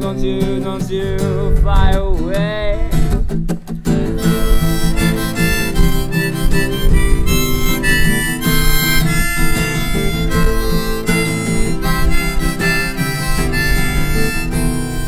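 Harmonica solo over strummed acoustic guitar. The harmonica notes waver and bend for the first few seconds; after a short break with a few sharp strums about three seconds in, it plays steadier held notes.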